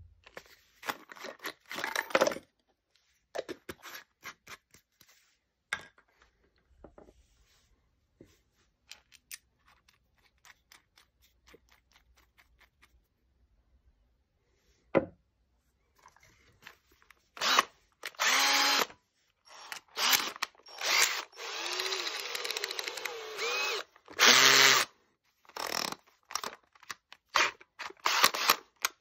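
Cordless drill motor running in repeated short bursts from about halfway through, its speed rising and falling with the trigger. Before that there are scattered clicks and rustles from handling the steel screw log-splitter bit.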